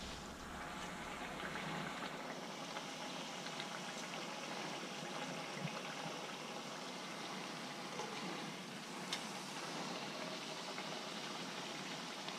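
Corn tortilla frying in shallow hot oil in a skillet: a steady, quiet sizzle with a few small pops.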